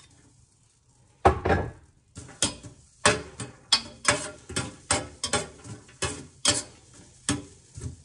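Metal spoon stirring and scraping garlic in a dry stainless-steel Saladmaster electric skillet, with no oil in the pan. It knocks against the pan about twice a second, after a louder clatter about a second in.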